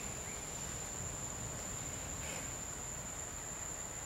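Insects singing in the forest: one steady, unbroken high-pitched tone over a low background rumble, with a brief scratchy sound a little past halfway.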